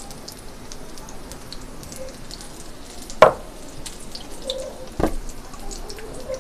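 Batter-coated green chillies deep-frying in hot ghee: a steady sizzle full of fine crackles and pops. Two sharp knocks stand out, about three and five seconds in, the first the loudest.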